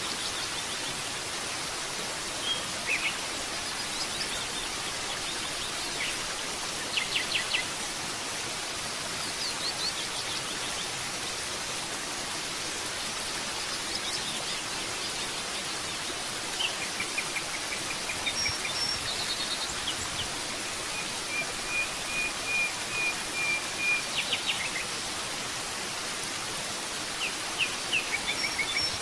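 Steady rushing of a waterfall, with forest birds chirping and trilling over it every few seconds. One bird gives a longer, even trill about three-quarters of the way through.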